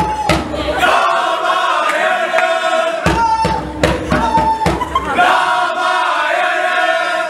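A group of male voices singing a chant together in long held, wavering notes, with a hand drum beating along.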